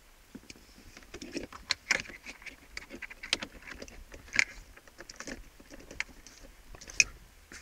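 Scattered light clicks and rustles of an OBD-II scanner cable and plug being handled and pushed into the car's diagnostic socket under the dashboard, with one sharper click about seven seconds in.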